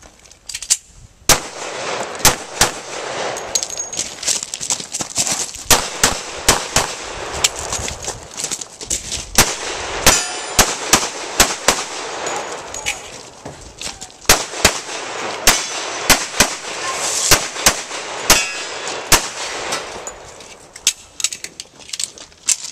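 Pistol shots fired rapidly through a practical shooting stage: dozens of sharp cracks, many in quick pairs, with short pauses between strings.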